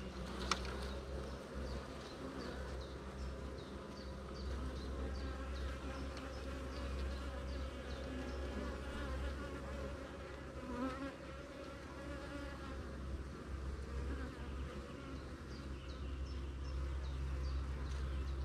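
Honeybees buzzing as a steady hum from a brood frame crowded with bees lifted out of the open hive. A single sharp click sounds about half a second in.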